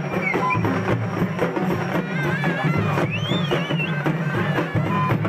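Live traditional festival drumming, fast and steady, with shrill wavering high tones rising over the beat about two to four seconds in.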